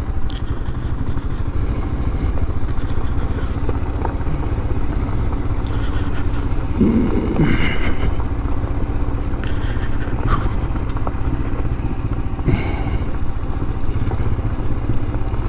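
Royal Enfield Scram 411's single-cylinder engine running steadily at low speed while the motorcycle rides over a gravel road, with a few brief clatters.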